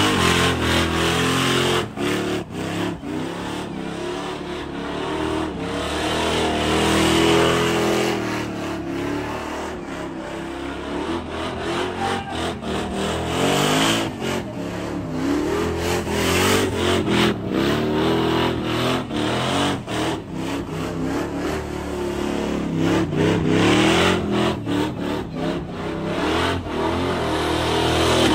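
Off-road buggy's engine revving hard through a tire-smoking burnout, its pitch climbing and falling again and again, over the hiss and squeal of spinning tires.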